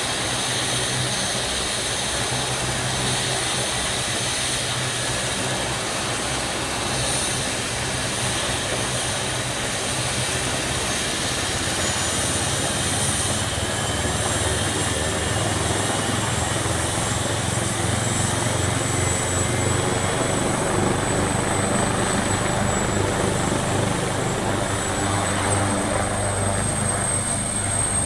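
AgustaWestland AW139 helicopter's twin turboshaft engines and main rotor running on the ground: a steady turbine whine over the rotor's beat. In the second half the whine climbs slightly and the sound grows louder as the helicopter powers up for takeoff.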